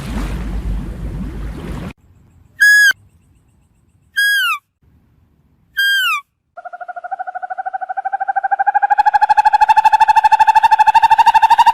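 An animal calling: three short calls, each falling in pitch, then one long fast-pulsed trill that rises slightly in pitch. A noisy rush comes before the calls.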